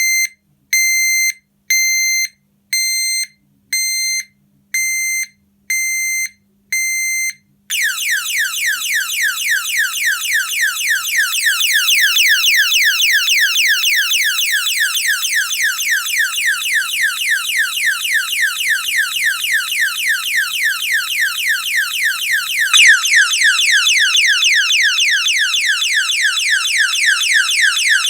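Menvier TS690 intruder alarm sounding: a high warning beep about once a second, then about eight seconds in it switches to full alarm, a fast electronic siren sweeping several times a second. The siren steps up in level near the end.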